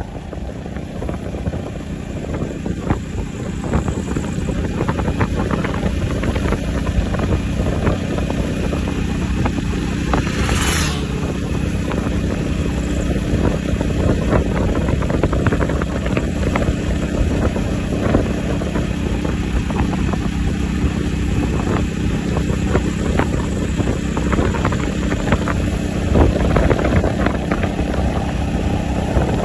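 Motorcycle engine running steadily at cruising speed, with wind noise on the microphone.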